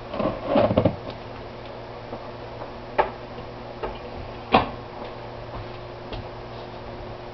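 Kitchen knife scraping and cutting through packing tape on a small cardboard box in a quick run of short strokes. After that come a few separate knocks and taps as the box and knife are handled on a countertop, the loudest about four and a half seconds in.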